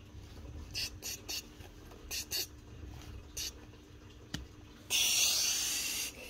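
Short scratchy rustles from plush toys and fabric being handled, a sharp click about four seconds in, then a louder rubbing noise lasting about a second near the end.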